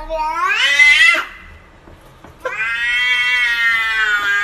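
Domestic cat meowing: a meow that rises in pitch and breaks off about a second in, then after a short pause a long, drawn-out meow starting a little past halfway.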